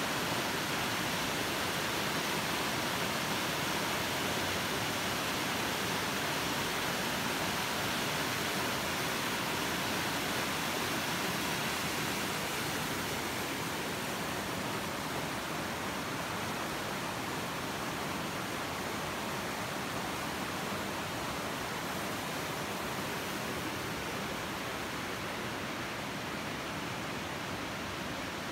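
The Nisqually River rushing steadily below a wooden suspension bridge, with rain falling, as one even wash of water noise.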